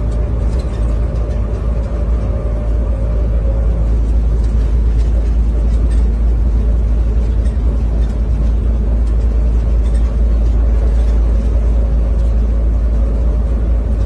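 Automated airport people-mover train running along its elevated guideway, heard from inside the car: a steady low rumble with a steady motor whine over it.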